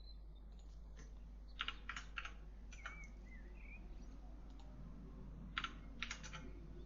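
Computer keyboard typing in two short bursts of key clicks, one about one and a half seconds in and one near the end, over a faint steady low hum.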